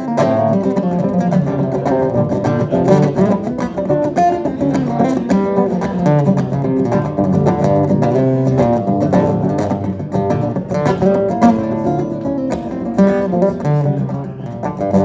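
Acoustic guitar picked fast in a wordless instrumental passage at the close of a song, with many quick plucked notes.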